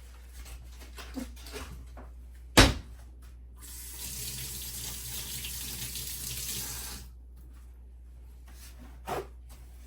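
A sharp knock, then water running from a tap for about three seconds before it is shut off abruptly, and a lighter knock near the end.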